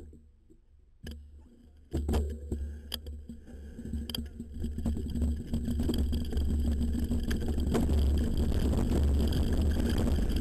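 Rocky Mountain Flatline downhill mountain bike setting off and rolling down a bumpy grass-and-dirt track: a single click about a second in, then from about two seconds in the clatter and rattle of the bike over bumps with tyre noise and a low wind rumble, getting louder as speed builds.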